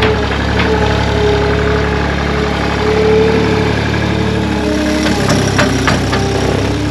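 Two-stroke chainsaw running steadily at high revs through wood, its pitch wavering slightly under load, with a few sharp knocks near the end.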